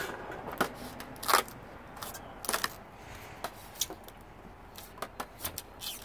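Irregular clicks, taps and light clatter, about a dozen scattered knocks, from parts being handled and pulled loose while a dishwasher is taken apart for scrap.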